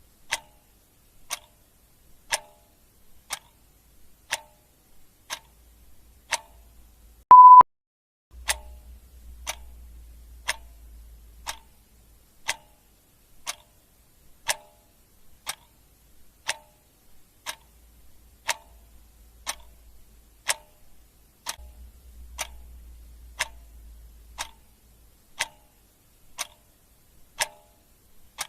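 Clock ticking steadily, about one tick a second. A single short, loud beep cuts in about seven seconds in.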